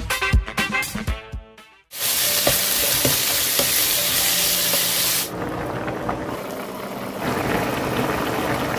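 Drum-backed music stops about two seconds in. Beef and shishito peppers then sizzle loudly in hot oil as they are stir-fried in a pan. About five seconds in, the sound turns to a softer, lower bubbling: the soy-sauce braise with quail eggs boiling.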